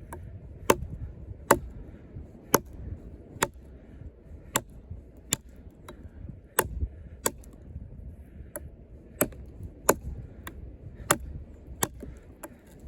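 Thick-bladed combat knife of Sleipner steel chopping into a hard, frozen log: sharp single strikes about one a second, some fifteen in all.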